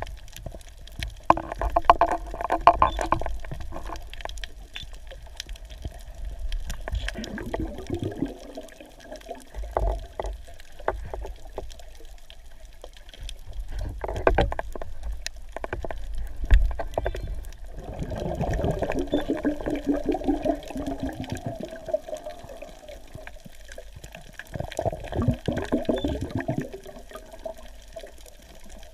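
Underwater sound heard through a camera's waterproof housing: a steady low rumble of water moving past the camera, with bursts of bubbling and gurgling about every four to six seconds, the longest about two thirds of the way through.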